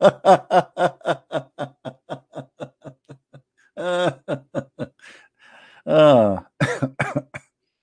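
A man laughing: a long run of short, quick "ha" pulses, about four a second, that fade over some three seconds, then after a breath a few louder bursts of laughter near the end.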